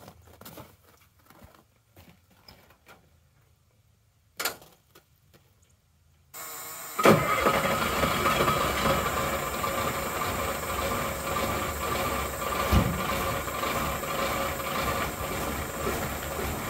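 Footsteps and a door clunk, then the Caterpillar 3208 V8 diesel in a 1989 Ford C8000 truck cranks briefly and catches about seven seconds in, running steadily from then on. This is a cold start at 21°F on an engine without glow plugs or an intake heater, made easy by a water-jacket block heater; it runs a little rough at first.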